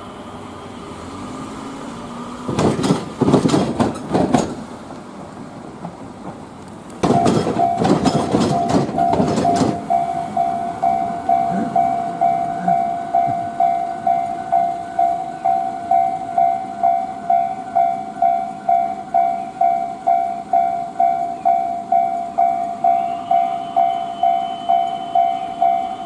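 Train wheels clattering over a railway level crossing in two bursts, about three and eight seconds in. The crossing's electronic warning bell then rings in a steady, even ding-ding, about two strikes a second, and keeps ringing as the crossing stays closed.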